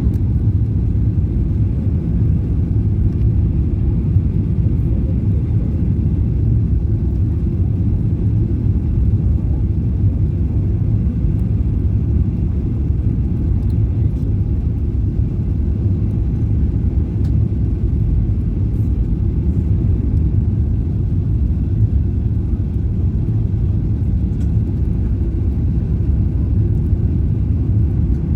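Steady low rumble of a Boeing 737-800 heard from inside the passenger cabin: engine and airflow noise, unchanging throughout.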